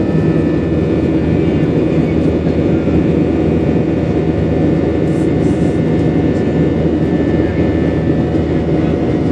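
Airliner cabin noise in flight: the steady low rumble of jet engines and rushing air, with a faint high engine whine running through it.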